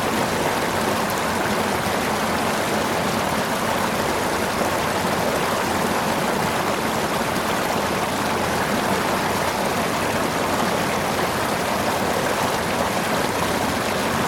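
River water flowing over stones in a steady, even rush, with no breaks or single splashes.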